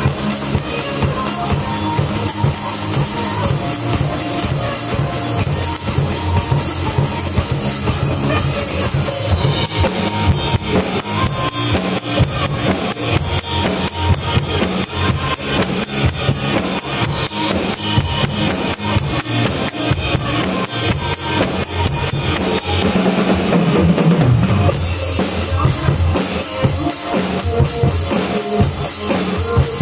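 Acoustic drum kit played along with a pop backing track: a steady beat of bass drum, snare and cymbals. About 23 seconds in the cymbals drop out for a moment, then the beat carries on.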